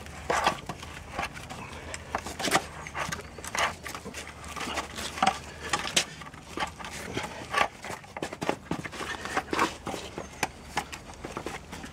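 Irregular clicks, knocks and creaks as the screw clamp of a wooden bending former is wound tight, forcing boiled greenwood chair legs into a curve under pressure.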